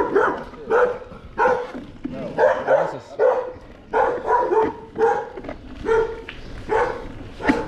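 A dog barking over and over, a quick run of short barks about one or two a second.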